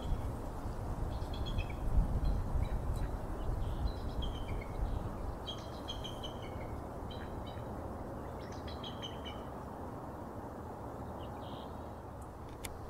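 Bird calls: a few runs of short, high chirping notes, some stepping down in pitch, in the first ten seconds. Under them runs a steady low outdoor rumble.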